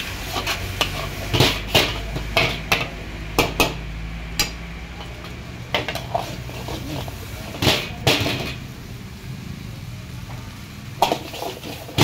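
Metal spatula and ladle clanking and scraping against a large iron wok as fried rice is stirred and tossed, in irregular knocks with a lull of a couple of seconds near the end. A low steady hum sits underneath for the first half.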